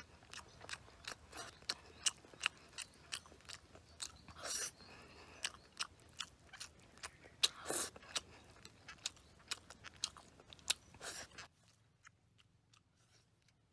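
A person chewing and smacking their lips close to the microphone while eating grilled fish: a quick run of small mouth clicks with a few longer, louder chewing sounds. The sounds drop to faint near the end.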